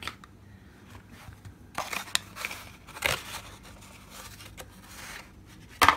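Packaging handled by hand: a few scattered rustles and clicks, then one sharp knock a second before the end, the loudest sound.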